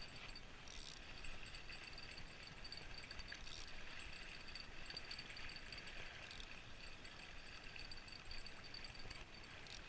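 Shimano Stratic spinning reel being cranked steadily, a faint whirring rattle with a few sharp clicks.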